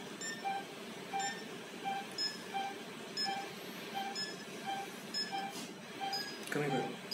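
Patient monitor's pulse-oximeter beep, a short tone repeating evenly a little faster than once a second in time with the patient's heartbeat. A brief low sound breaks in near the end.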